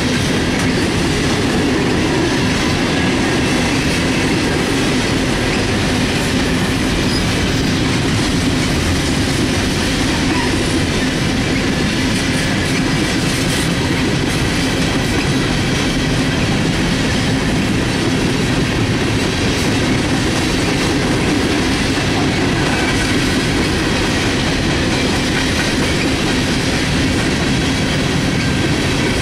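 A string of empty steel coal hopper cars rolling past, with a steady rumble and clatter of steel wheels on the rails.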